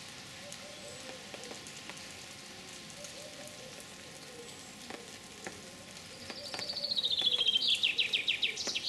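Faint crackling and small clicks of a red squirrel's teeth gnawing at a hazelnut shell. About six seconds in, a songbird sings loudly: a quick run of notes falling in pitch, ending with a short rising flourish.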